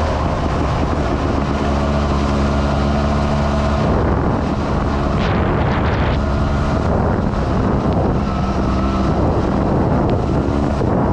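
Sherco trials motorcycle engine running under way, its pitch steady for the first few seconds, then rising and falling as the throttle changes, with wind rushing over the microphone. A brief hissing rush comes around five to six seconds in.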